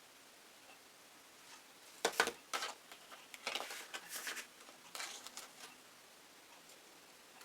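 A painting tool scraping and tapping on a stretched canvas in a string of short scratchy clicks that starts about two seconds in and stops a few seconds later.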